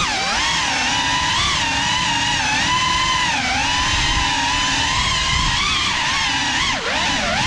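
GEPRC Cinelog 35 cinewhoop's brushless motors and ducted propellers whining, the pitch wavering up and down with the throttle over a low rumble. Near the end the pitch drops sharply for a moment and then climbs back.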